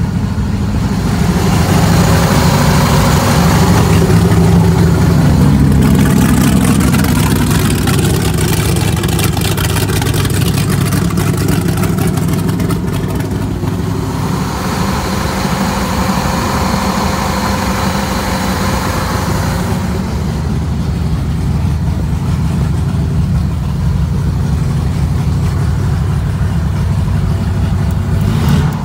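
The 1999 Wellcraft Scarab 23's carbureted inboard engine idling steadily at low rpm, freshly started and not yet up to temperature. A hiss rides over the engine for about the first two-thirds.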